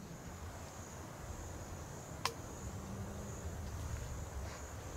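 A steady high-pitched insect chorus, with wind rumbling on the microphone underneath and one sharp tick a little over two seconds in.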